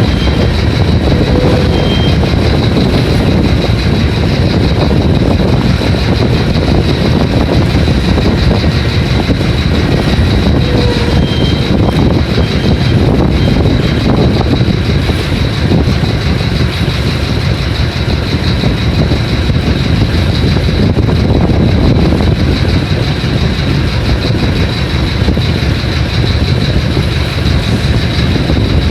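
Strong wind blowing hard against the microphone: a loud, steady rumbling rush with a thin high whistle held throughout.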